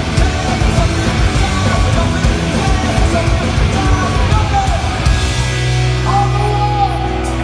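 Punk rock band playing live at full volume, with distorted electric guitars, bass and drums. About five seconds in, the drumming drops away into a sustained held chord.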